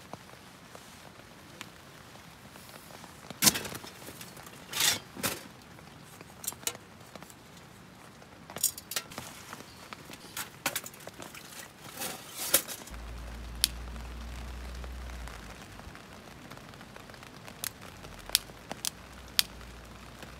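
Camping gear being handled and rummaged through: short rustles and sharp clicks and knocks at irregular moments, with a low steady hum for about two seconds in the middle and a few separate clicks near the end.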